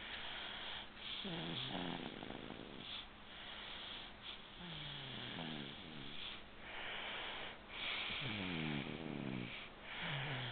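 Snoring: slow, noisy breathing with a falling-pitched snore every three seconds or so.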